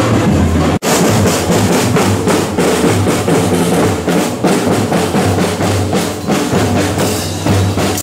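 Street parade band's marching snare drums and bass drums playing a busy, driving beat. There is a brief dropout just under a second in.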